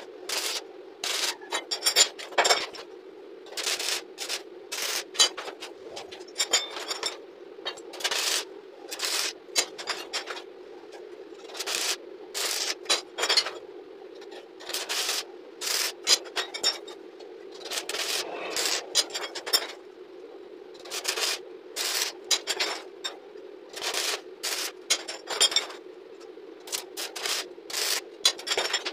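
Stick arc welding: short tack welds joining steel scrolls to a grill frame, each a brief burst of crackling, repeated roughly once a second, over a steady hum.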